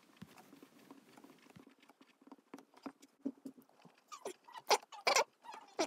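Pen scratching on paper while writing, in many short quick strokes, with a few louder strokes about four to five seconds in.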